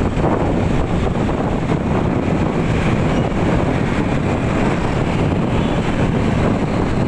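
Wind rushing steadily over the microphone of a moving motorcycle, with the ride's engine and road noise underneath.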